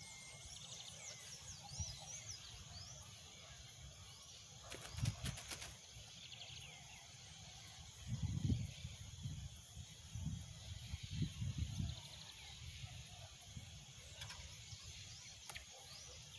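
Riverside evening ambience: birds chirping with quick rising and falling calls over a steady high insect drone. A brief clatter about five seconds in, and low rumbling buffets on the microphone between about eight and twelve seconds.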